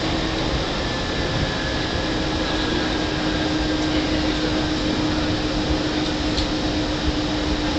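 Steady rushing cabin noise of a Boeing 747-400 taxiing, from its engines and air conditioning, with a constant low hum.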